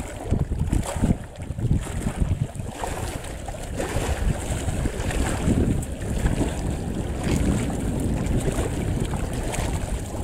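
Wind buffeting the microphone: a gusty low rumble, with a faint wash of hiss above it.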